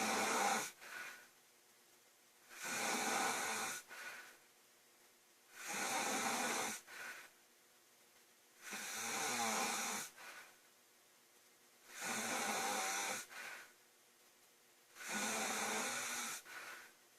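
A woman snoring in regular breaths, six snores about three seconds apart. Each snore lasts about a second and is followed by a short, weaker puff of breath.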